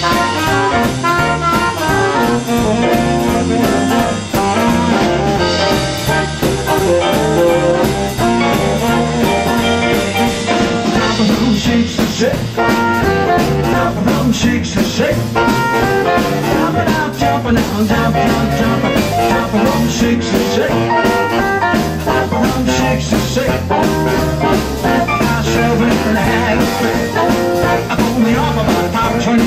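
Live jump-blues band playing, with baritone saxophone, hollow-body electric guitar, upright bass and drums. A man sings into the microphone in the later part.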